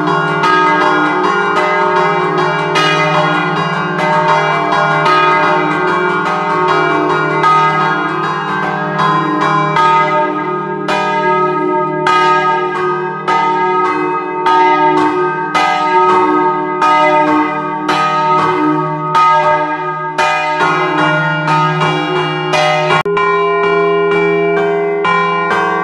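Three-bell set of bronze church bells in E-flat, cast by De Poli in 1947, chimed by hand while hanging still: ringers pull chains tied to the clappers to strike a rhythmic scampanottata. A fast run of strokes over a steady hum gives way to more spaced strokes, about two a second, and the pattern changes near the end.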